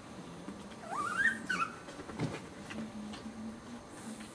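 A seven-week-old Chihuahua puppy gives one short, high whine about a second in, rising in pitch and then wavering. A soft click follows shortly after.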